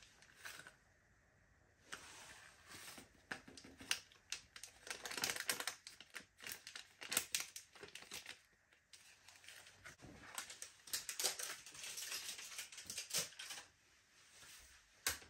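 Plastic packet of coconut milk powder crinkling and crackling in the hands as the powder is shaken out of it into a glass measuring jug. The crackling comes in quick runs, with one sharp knock near the end.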